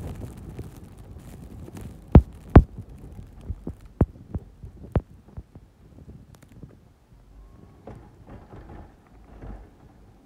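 Pickup truck with a V-plow pushing snow, its engine a low rumble under a series of sharp knocks: two loud ones about two seconds in, then several fainter ones before the sixth second.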